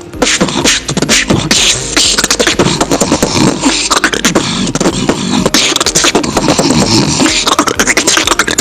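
Human beatboxing: a fast, dense beat of mouth-made kick, snare and hi-hat sounds, with the inhaled snore bass worked in. It starts abruptly and keeps going without a break.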